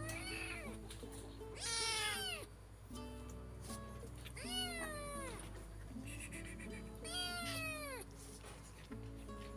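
A young kitten meowing, four high calls a couple of seconds apart, each sliding down in pitch at its end, the second one the loudest. Soft background music plays under it.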